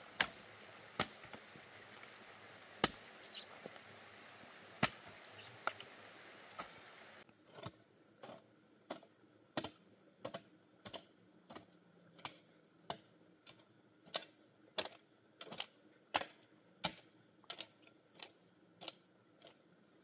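A long-handled hoe chopping into loose dirt in sharp, separate strikes. The strikes are spaced a second or more apart at first, then from about seven seconds in come steadily at roughly one and a half to two a second.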